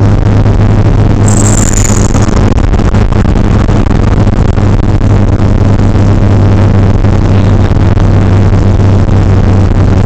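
Chrysler Conquest TSi's turbocharged 2.6-litre four-cylinder engine pulling at a steady pitch under way, heard from inside the cabin with a loud wash of road and wind noise. A high whistle sounds about a second in, sliding slightly down in pitch for about a second.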